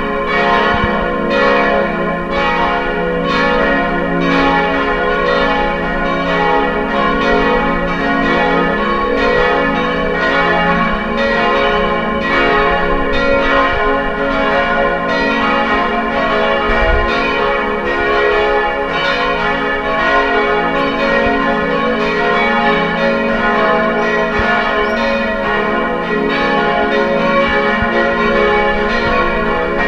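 Church bells pealing: several bells ringing together in a steady stream of strokes, each stroke leaving a long ringing hum that overlaps the next.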